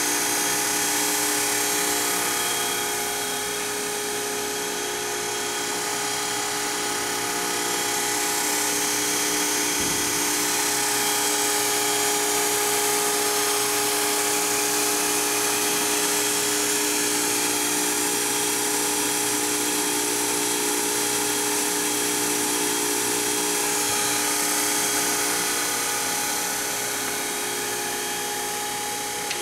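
Okamoto OGM-820UST universal cylindrical grinder running with its internal-grinding (ID) spindle spinning at speed: a steady high-pitched machine whine made of several steady tones over a hiss.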